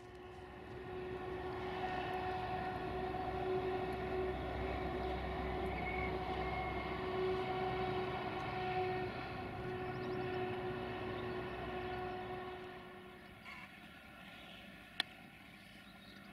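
Train horn held on one long steady note over the low rumble of a moving train. It fades out near the end, leaving quieter outdoor background with a single sharp click.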